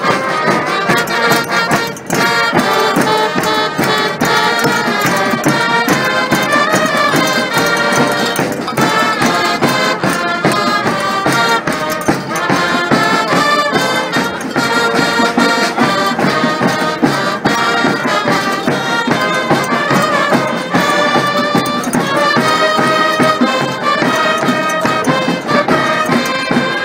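Live brass band of trumpets, trombones and saxophones playing an upbeat tune with a steady beat.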